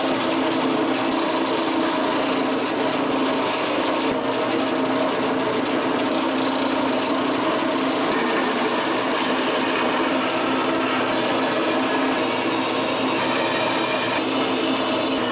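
Electric drill running steadily, boring holes through half-inch flat steel plate.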